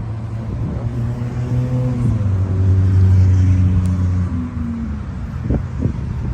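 A motor vehicle's engine going by, growing louder to a peak about three seconds in with its pitch dropping a little, then fading away; a few light knocks near the end.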